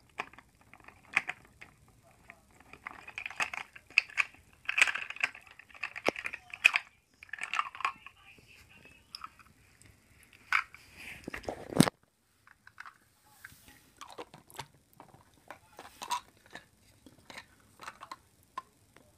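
Handling noise of a die-cast toy car being dipped in a small plastic tub of water and picked up from the playset: clustered clicks, taps and rustles for about the first twelve seconds, the loudest a sharp click just before the noise thins out, then scattered fainter clicks.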